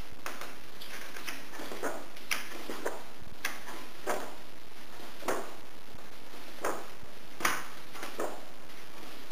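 Pages of a book being turned by hand one after another, each a short papery swish, about a dozen at irregular intervals of half a second to a second and a half, over a steady background hiss.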